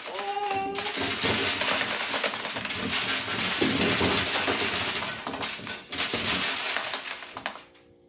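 Hand-cranked corn sheller clattering as ears of corn are fed through and turned, kernels rattling down into a wooden box; the clatter stops shortly before the end.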